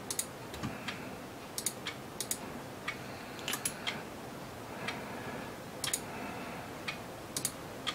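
Computer mouse clicking: scattered sharp clicks, some single and some in quick pairs, as context menus are opened and a drawing view is dragged.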